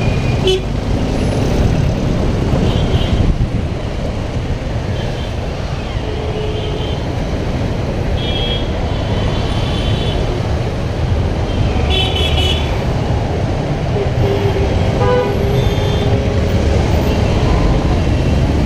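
Steady low rumble of a Bajaj Pulsar 200NS's single-cylinder engine and road noise while riding in heavy city traffic, with other vehicles' horns tooting several times, most clearly about 8 and 12 seconds in.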